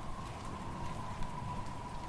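Wind blowing in a steady low rumble, with a faint, even whistle. Sparse, faint crackles from a fireplace fire sound over it.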